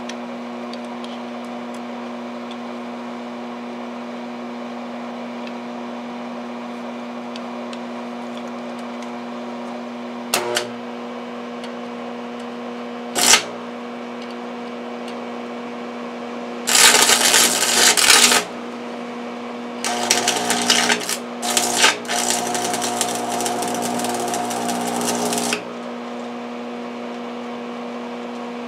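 Stick (arc) welding on a steel shaft: the electrode is touched to the work twice in short crackling strikes, then the arc catches and crackles and sizzles for about a second and a half, and again for about six seconds with a couple of brief breaks. A steady electrical hum sits underneath.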